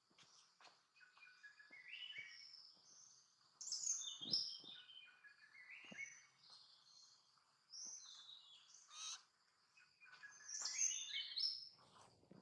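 Birds singing: short phrases of quick, stepping high notes, repeated every second or two, with a few faint clicks among them.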